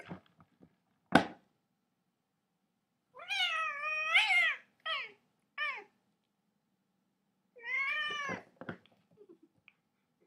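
Domestic cat meowing: one long, wavering meow, two short ones right after it, and another meow near the end. A sharp knock comes about a second in, and a few light taps follow the last meow.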